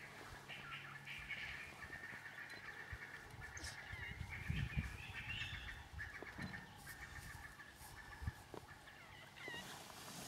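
African wild dogs giving high-pitched, bird-like twittering calls in rapid chattering runs, almost without a break, a sign of excited agitation during a territorial encounter between packs. A few low thumps about halfway are the loudest moment.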